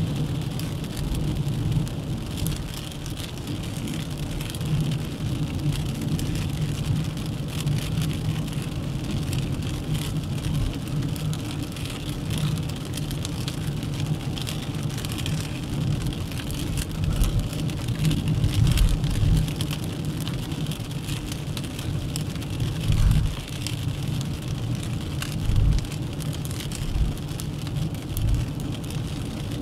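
Dacia Duster 1.3 TCe 4x4 driving on the road: a steady low rumble of engine and tyres under a hiss, with scattered light ticks.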